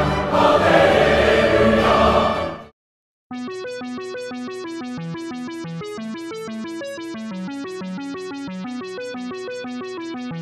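Background music. Choral music cuts off about two and a half seconds in, and after a brief silence a quick, repeating pattern of short keyboard-like notes starts up and carries on at an even level.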